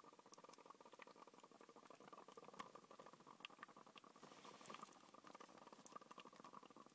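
Faint, steady bubbling from a homemade plastic-bottle bong as it draws smoke through water, with many small ticks and pops.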